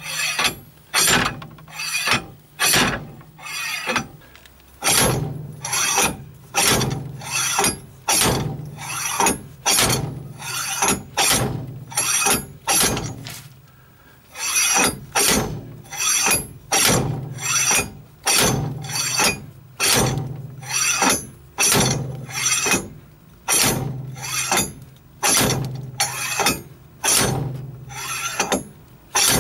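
Slide hammer puller being struck repeatedly, metal on metal, about one blow a second with a short ring after each and a brief pause about halfway, knocking a front wheel hub out of its bearing.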